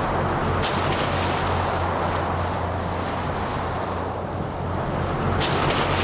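Fishing boat under way: a steady engine drone beneath the rush and splash of water along the hull, with wind on the microphone. The hiss of spray swells twice, about half a second in and again near the end.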